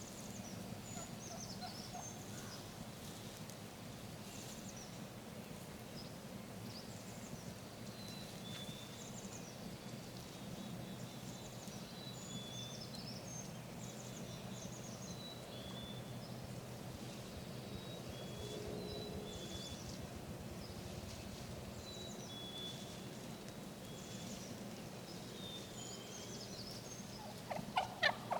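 Faint songbird chirps over a low steady hum, then near the end a wild turkey gobbles loudly, a fast rattling run of notes.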